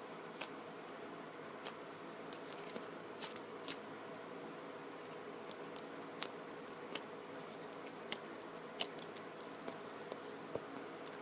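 Faint, scattered clicks and light rustles of a foam squishy toy and its tag being handled, over a steady low hum of room tone.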